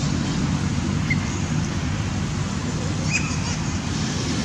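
Steady low outdoor rumble, like wind on the microphone or distant traffic, with a few short high chirps about one second and three seconds in.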